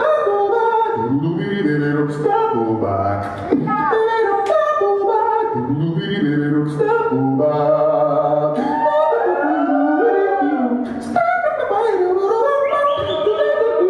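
Recorded music played for a dance routine: a sung vocal line over a bass line and sharp percussion hits.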